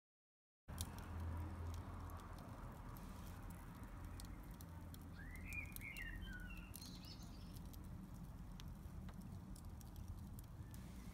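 Wood fire crackling in a dome pizza oven, scattered sharp pops over a low steady rumble. A bird calls once, briefly, about five seconds in.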